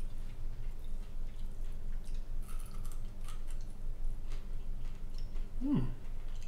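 Chewing the crisp, hard-fried tail of a cornmeal-battered yellow bass, heard as a scatter of small crunches and clicks. Near the end comes a short falling "mm" from the eater.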